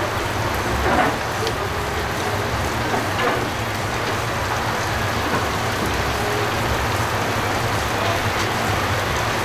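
Steady rain falling and pattering on surfaces, with a low steady hum underneath.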